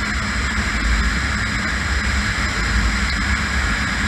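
Kawasaki KLR650's single-cylinder engine running at a steady highway cruise, mixed with heavy wind rush and buffeting on the microphone.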